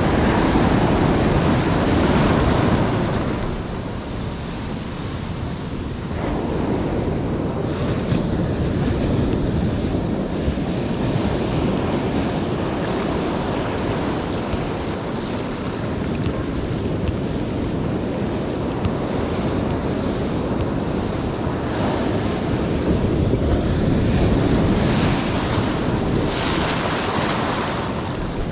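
Ocean surf washing in steadily, with wind buffeting the microphone. The waves surge loudest in the first few seconds and again near the end.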